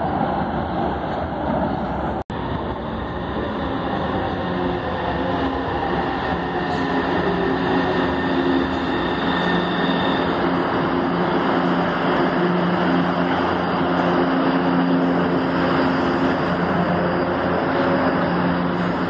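Metro train's electric traction motors whining over rail and running noise, the pitch of the whine falling as the train slows, then holding as a steady hum with several tones. The sound cuts out for an instant about two seconds in.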